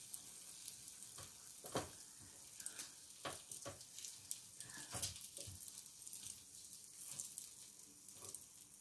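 Eggs and sausage sizzling faintly on an electric grill plate, a steady hiss. A few light clicks and scrapes of a wooden spatula against the plate come through it.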